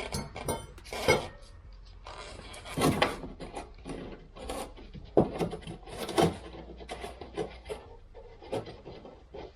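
Irregular knocks, clicks and scraping as the car's front suspension parts are handled and prodded by hand during a check for a knocking fault.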